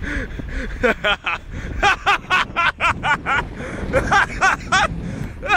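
A person laughing hard in runs of short rapid bursts, over a low rumble of wind on the phone's microphone.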